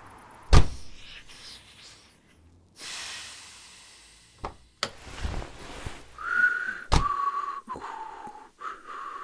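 Audio-drama sound effects: a loud thump about half a second in, a stretch of hiss, and a few knocks. Then, from about six seconds in, a person whistles a few held notes that step down in pitch and back up, with another thump about a second after the whistling starts.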